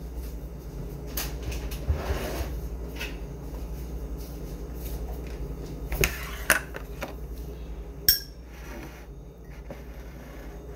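Cups, dishes and a spoon being handled on a kitchen counter while coffee is made: a few scattered knocks and clinks, the sharpest about six seconds in and a brief ringing clink about eight seconds in, over a steady low hum.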